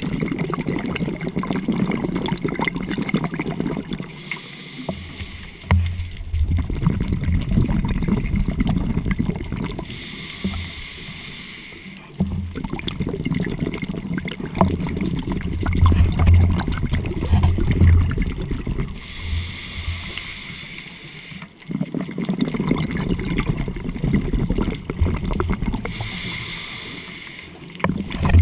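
A scuba diver breathing through a regulator underwater. Four short hissing inhalations are each followed by several seconds of loud, crackling exhaust bubbles.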